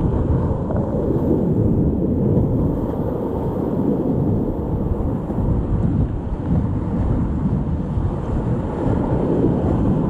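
Whitewater rapids rushing around a kayak, heard from the boat as a loud, steady, low rush of water with little high end.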